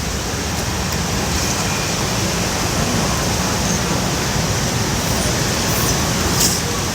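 Steady wind and road noise from a moving vehicle: a constant rushing hiss over a heavy low rumble.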